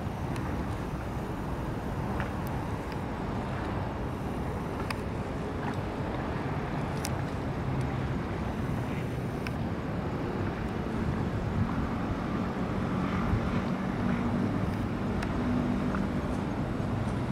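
Steady low rumble of distant city traffic. A low engine hum joins about ten seconds in, and there are a few faint clicks.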